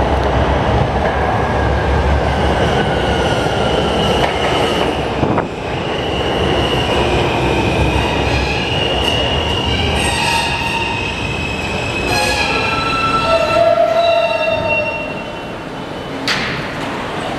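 R160 subway train pulling into a station and braking to a stop. A heavy rumble of wheels on rail with a slowly falling whine comes first, then several high squeals as the train slows, and a short sharp sound near the end as it comes to rest.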